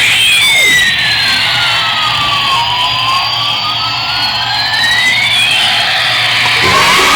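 Electronic siren-like sound effect: a single wailing tone that glides slowly down and then back up over a few seconds, over a dense steady hiss.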